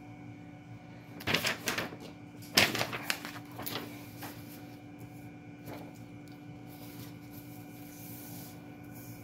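Steady electrical hum with a few faint whining tones, broken by two short bursts of clattering, rustling handling noise about a second and a half and three seconds in, then a few lighter ticks.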